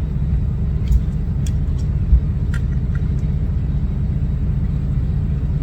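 Steady low rumble, with a few faint light clicks about one to three seconds in as the fog light switch's wiring connector is handled and plugged in.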